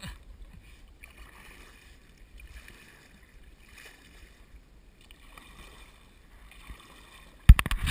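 Kayak paddle strokes in river water, faint and regular, about one every second and a half. Near the end comes one loud, sharp knock.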